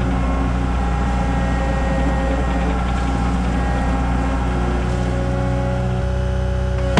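Diesel engine of a CAT 279 skid steer running steadily.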